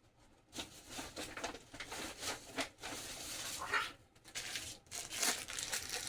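Food packaging and packing material being handled: irregular rustling and crinkling with small knocks as items are lifted out of a delivery box.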